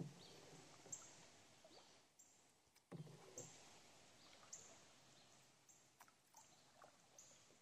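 Faint canoe paddle strokes in the water: one at the start and another about three seconds in, each fading out over a couple of seconds, with small drips and ticks in between.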